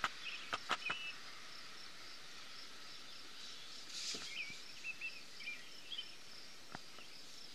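Pencil on paper: a few light taps in the first second over a faint steady hiss, with short high chirps about four seconds in and again near six seconds.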